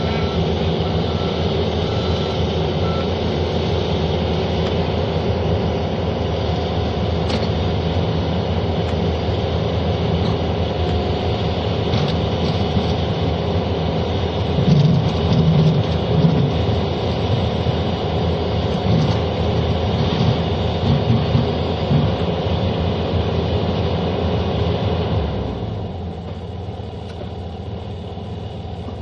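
Caterpillar mini excavator's diesel engine running steadily while the machine digs, swelling louder twice midway, then dropping to a quieter note near the end. A few short high beeps sound in the first seconds.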